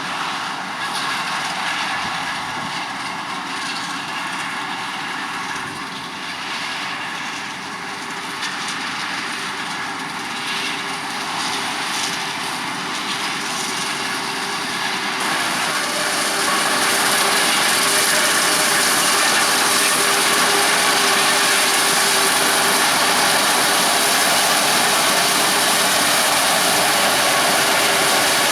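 Heavy maize-harvesting machinery running steadily, the forage harvester and carting tractors working. About halfway through the sound jumps abruptly louder and brighter, then holds steady.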